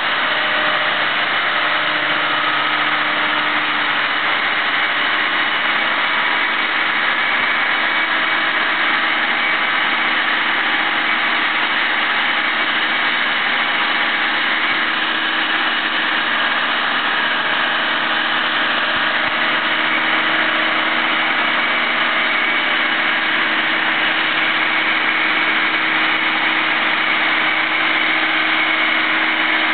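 Mobile crane's engine running steadily as it holds and swings an engine lifted out of a boat.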